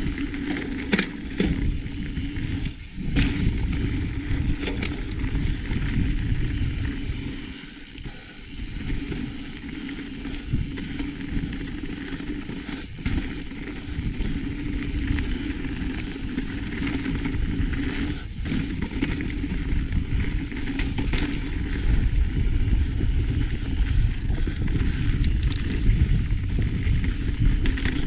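Mountain bike riding down a dirt trail: a steady rush of wind and tyre noise, with sharp rattles and knocks as the bike goes over bumps.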